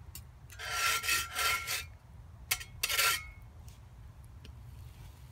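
Rubbing and scraping noises from handling the bread and skillet: two scrapes close together about a second in, a sharp click, then one shorter scrape.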